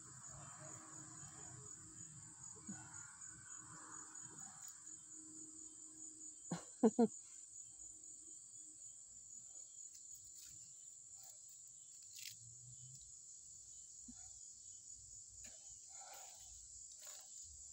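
Insects keep up a steady, high, finely pulsing chorus. About seven seconds in, three short, loud calls break in.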